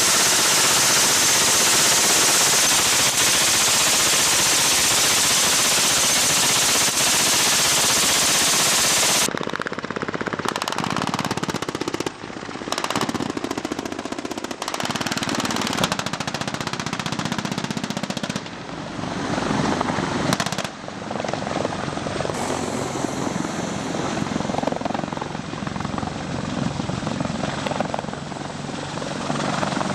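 Live-fire range: a loud steady rush for about nine seconds cuts off abruptly, followed by repeated rifle and machine-gun fire with military helicopter noise underneath.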